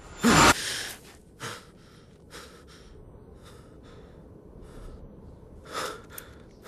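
A man wakes with a sharp, loud gasp, then breathes hard in a run of short, ragged breaths.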